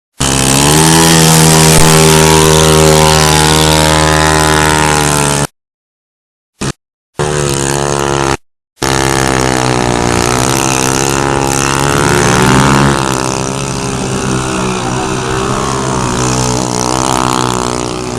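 Motorcycle engine running at a steady speed, then revving up and down. The sound drops out abruptly to silence a few times in the middle.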